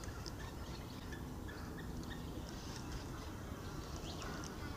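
Faint outdoor ambience: a low steady rumble with small, scattered high chirps and ticks.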